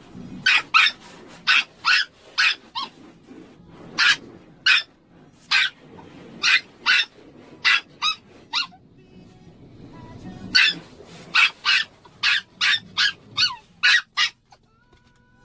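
A Maltese dog barking over and over in short, high-pitched yaps, in quick runs with a brief pause midway. The dog is calling for its owner, who is outside the car.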